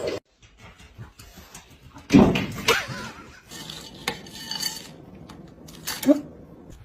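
Dishes and cutlery clattering, with scattered clinks and one loud crash about two seconds in.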